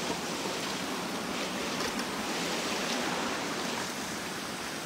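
Steady rushing of flowing river water in shallow water by the bank, with a couple of faint clicks about two and three seconds in.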